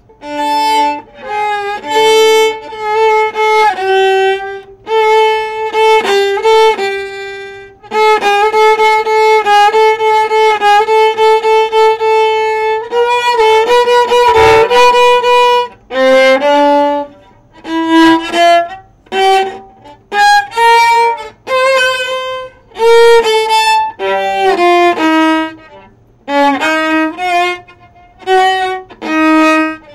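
Solo viola played with a bow: a melody of single held and moving notes in short phrases with brief pauses between them. About a third of the way in comes a stretch of quick, even repeated bow strokes, followed by a scratchy, noisy accent about halfway through.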